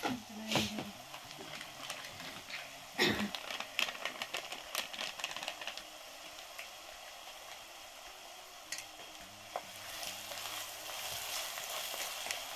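Momo filling frying in oil in a pan while it is stirred, a steady sizzle with clicks of the stirring utensil and two sharper knocks, one at the start and one about three seconds in. The sizzle grows louder near the end.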